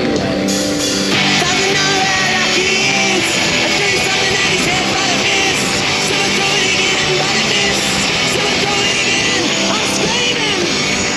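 Rock music with a singing voice over a full band.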